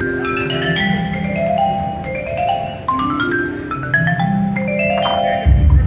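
Marimbas and vibraphones of a percussion ensemble's front ensemble playing quick rippling runs of mallet notes that step up and down in pitch, with a loud low boom about five and a half seconds in.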